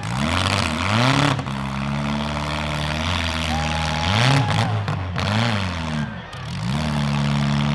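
Demolition derby compact car's engine revving hard, the pitch dropping and climbing back several times between stretches held at high revs.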